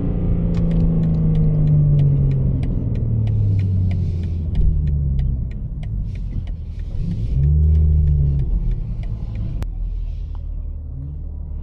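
BMW G80 M3's twin-turbo inline-six, heard from inside the cabin, coasting with its engine note falling steadily as the car slows, over a run of light, quick ticks. About seven seconds in the engine note rises and falls again in a brief pull.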